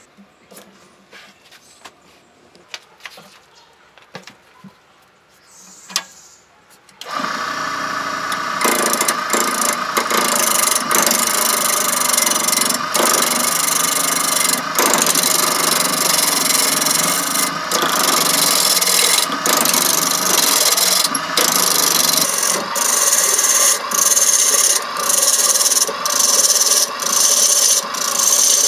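A few light clicks and knocks as a rough wood blank is fitted on the lathe. About seven seconds in, the lathe starts and a gouge cuts into the spinning blank: a loud, steady, rough scraping broken by many short gaps, which come more often near the end.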